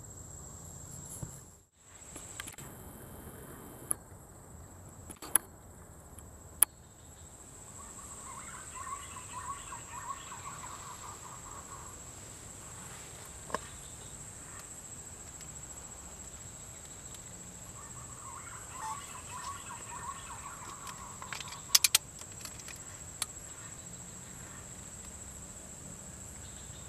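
Tropical field ambience: a steady high insect whine, with two spells of a bird calling in rapid series of notes. A few sharp clicks, the loudest a quick cluster of them about two thirds of the way in.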